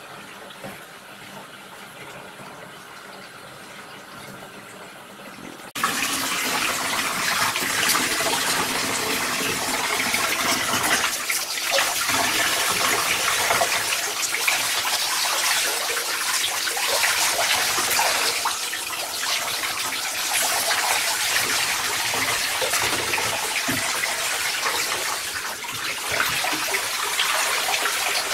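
Faint water sounds in a bathtub; then, about six seconds in, a handheld shower suddenly starts spraying, and water pours and splatters steadily over soaked clothing and boots into the tub.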